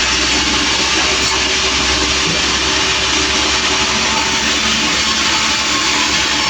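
Sawmill running steadily: a loud, continuous machine noise with a steady engine hum beneath.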